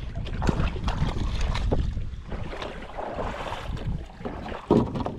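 Wind buffeting the microphone as a steady low rumble, with scattered short splashes and knocks of water over it.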